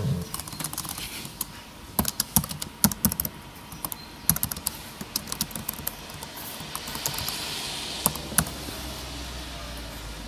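Typing on a laptop keyboard: irregular clusters of key clicks, with pauses between bursts. A soft hiss rises in the background from about six seconds in.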